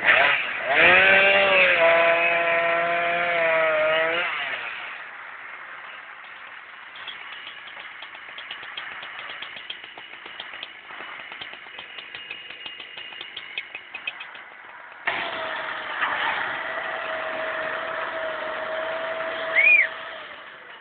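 A motor revs up hard in the first few seconds, then settles lower with a fast light ticking. About fifteen seconds in it picks up again to a steady whine, with a short squeal just before the end.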